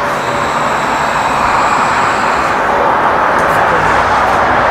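Steady rushing background noise, with a faint high thin whine for the first two seconds or so.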